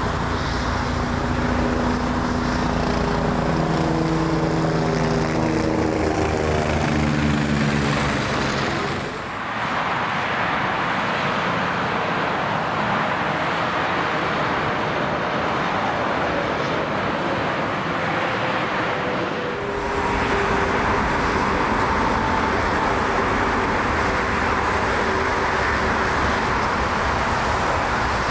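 Jet airliners landing. First, jet engine noise whose tone falls steadily in pitch as the aircraft passes. Then a steady rush of motorway traffic with a Boeing 747 low overhead, and finally the 747 touching down on a wet runway with a steady rushing noise.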